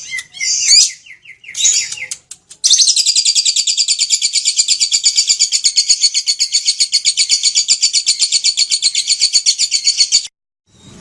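Lovebird giving a few short high chirps, then launching into a long, rapid chattering trill (the 'ngekek') of evenly repeated high notes that runs for about seven and a half seconds and cuts off suddenly.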